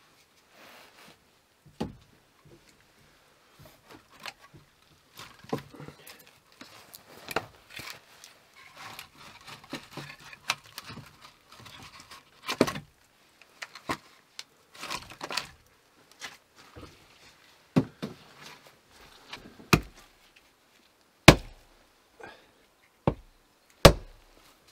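Split firewood logs knocking and clunking against each other as they are pulled from a woodpile and gathered in the arms. Near the end come a few sharper, louder strikes as an axe bites into a log on a chopping block.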